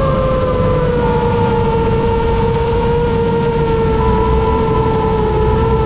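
Motors and propellers of a 7-inch AOS Falcon 7 FPV quadcopter (T-Motor F90 1300KV brushless motors) whining steadily in flight, over a rush of wind. The pitch eases slightly lower about a second in and then holds.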